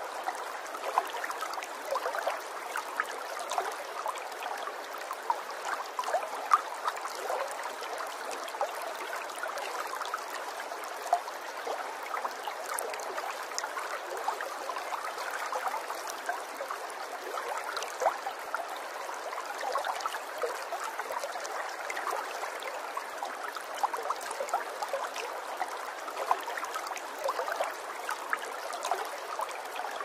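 Shallow creek running over a stony riffle: a steady babble of flowing water full of small splashes and trickles.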